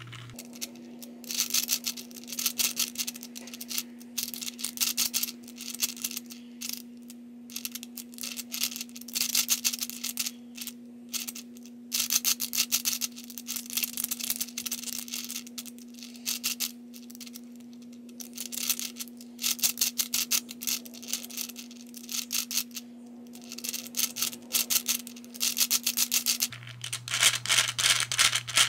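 Hungarian Rings puzzle being turned by hand: its balls click and rattle along the ring tracks in bursts of a second or two, with short pauses between turns, over a faint steady hum.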